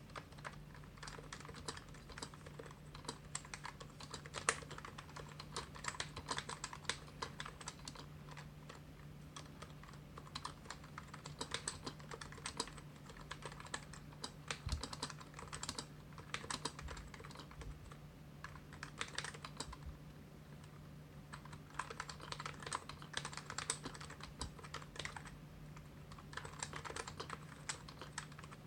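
Typing on a keyboard in a Marquette Case 16 fitted with dome-with-slider switches: dense runs of keystrokes in bursts, broken by short pauses.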